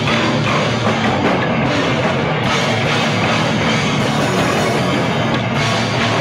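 Live rock band playing loud and unbroken, with electric guitars and drums.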